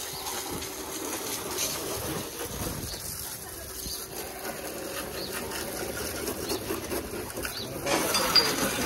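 Homemade electric pressure washer pump running while water sprays from its gun: a steady hiss of spray over the pump motor's faint hum, a little louder near the end.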